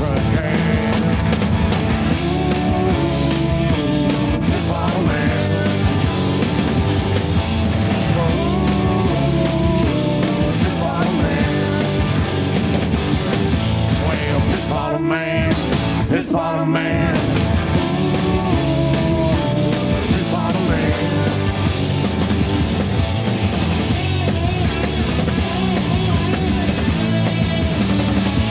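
Live punk rock band playing: electric bass, drums and guitar, with a man singing at the microphone. The band briefly stops for a beat about halfway through, then comes back in.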